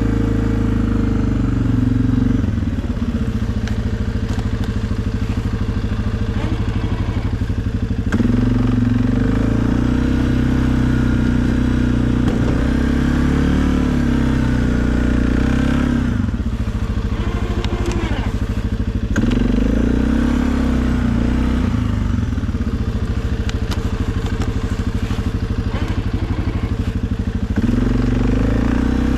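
Suzuki KingQuad ATV's single-cylinder engine running under load while plowing snow, its note shifting up and down several times as the load and throttle change.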